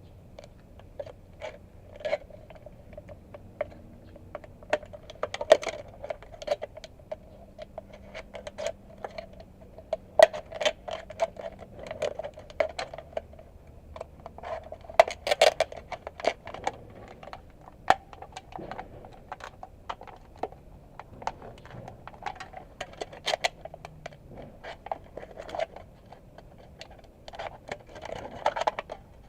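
Aluminium drink can being cut apart and handled: many irregular sharp metallic crinkles, clicks and scrapes of thin sheet metal.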